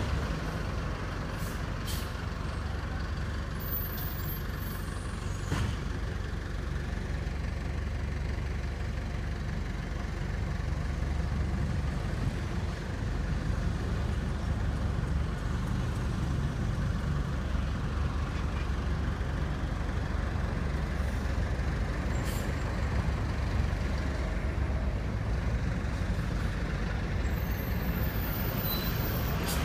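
Street traffic: a steady low rumble of passing engines and heavy vehicles, with a few faint ticks.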